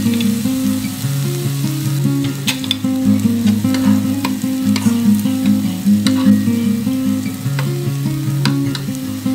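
Pork, sausages and mushrooms sizzling on a ribbed tabletop grill pan, with metal tongs clicking against the pan about a dozen times as pieces are turned. Background music with low held notes plays over it.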